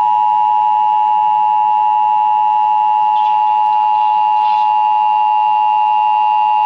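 Emergency Alert System attention signal: two steady tones sounding together, unbroken and loud, the warning that an emergency alert message, here a flash flood warning, is about to be broadcast.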